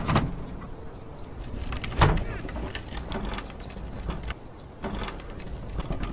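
Plastic wheeled garbage bin being pushed along a concrete driveway: a rumble of its wheels on the concrete with a sharp knock at the start and a louder one about two seconds in, as the bin bumps and its lid rattles.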